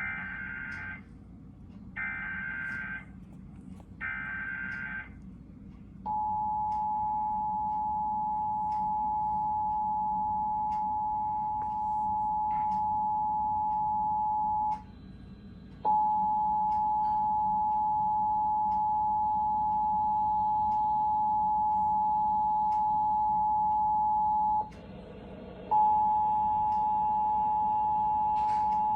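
Emergency Alert System tones: three one-second bursts of warbling SAME data header, then the steady two-tone attention signal, two tones sounding together, cut off twice for about a second.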